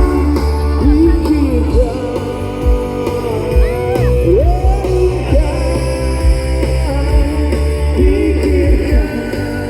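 Live band playing a pop-rock song, with a sung melody over heavy bass and drum hits.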